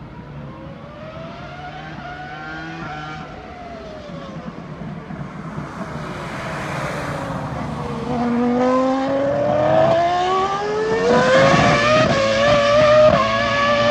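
Ferrari three-seater Formula 1 car's V10 engine lapping the circuit: its note rises for a few seconds, falls as it slows for a corner, then climbs steadily under acceleration from about halfway. It grows louder as the car approaches and is loudest near the end.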